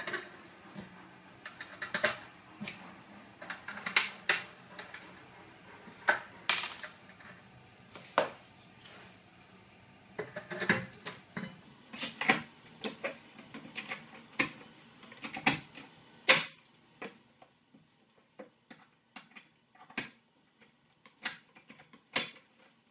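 Hand pop-rivet gun clicking and snapping as its handles are squeezed repeatedly, setting 4 mm pop rivets into steel trunking. The clicks come irregularly, with the loudest snap about sixteen seconds in.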